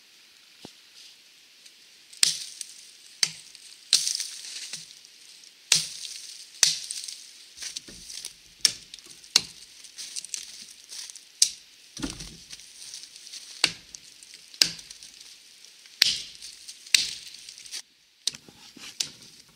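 Wetterlings Bushman axe limbing a fallen tree, chopping off its branches: about fifteen sharp strikes roughly a second apart, starting about two seconds in, with twigs and branches rustling between strikes.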